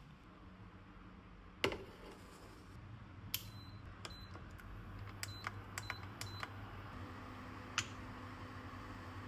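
Kitchen work: a sharp clack, then a run of light clicks with a few short high beeps, over a low appliance hum that grows steadier.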